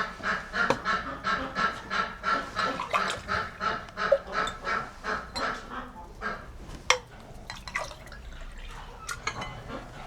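Domestic fowl honking in a rapid run of calls, about three a second, that fades out after about six seconds, followed by a few sharp clicks.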